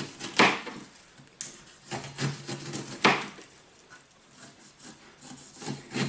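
Kitchen knife cutting the tough outer skin off a pineapple: a few separate sharp cuts and knocks against a plastic chopping board, with fainter scraping between them.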